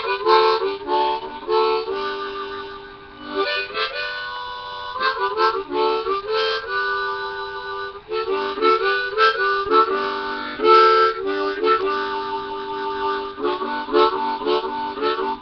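Harmonica (blues harp) held in cupped hands, played in short chordal phrases, several notes sounding at once, with brief pauses between phrases.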